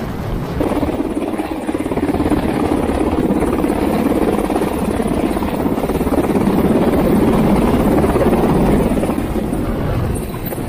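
UH-60 Black Hawk helicopter hovering low overhead, with its rotors and twin turbine engines running loud and continuous. The noise swells toward the middle and eases slightly near the end.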